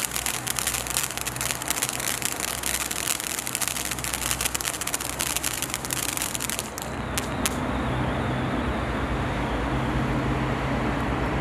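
Black Cat Illuminati fountain firework spraying and crackling: a dense, rapid crackle over a hiss. About seven seconds in the crackle stops after a few last pops, and a steady low mechanical hum is left.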